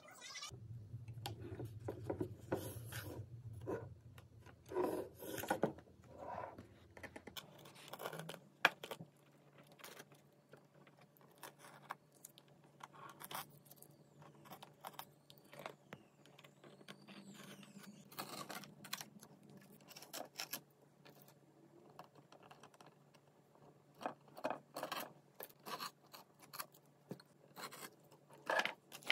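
Soft scratching and scraping from handling a painted popsicle-stick model house: a paintbrush working on the wooden fence, then masking tape being peeled off the blue trim in a cluster of scratchy crackles near the end, over a faint low hum.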